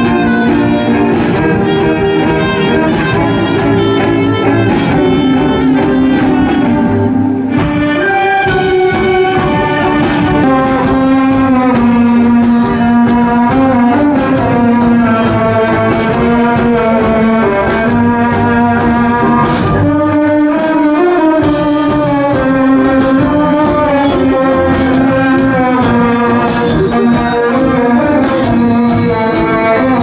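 Music playing continuously at a steady, loud level, with a held melody line.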